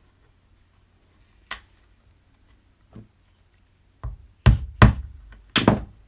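Rubber mallet striking a single-prong leather punch through a leather strap on a hard surface. A few light knocks come first, then three heavier blows in quick succession near the end.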